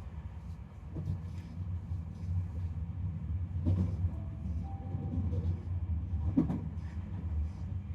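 Tobu Urban Park Line commuter train running between stations, heard from inside the car: a steady low rumble with a few short knocks from the wheels and car, the loudest near the middle and about two-thirds of the way through.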